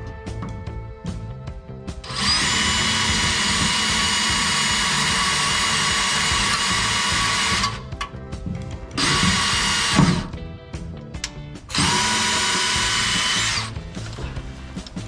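DeWalt cordless drill running at a steady whine in three bursts, a long one of about five seconds and then two shorter ones, drilling a pilot hole into the truck's underside for a ground screw.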